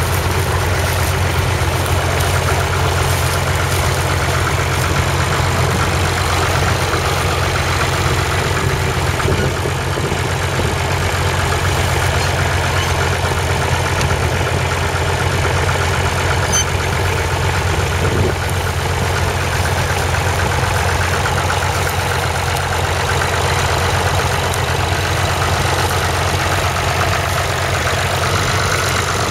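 The 2.5-litre three-cylinder Perkins diesel of a 1961 Massey Ferguson 35 tractor, running steadily at a low, even speed, heard close up.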